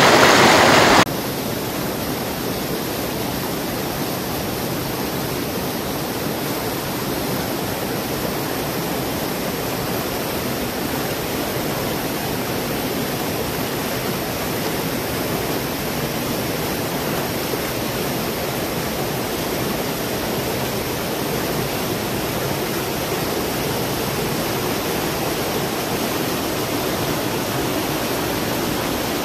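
Karjulanjoki river in spring flood, its water rushing with a steady, even noise. A louder rush cuts off abruptly about a second in, and the flow continues steadily after that.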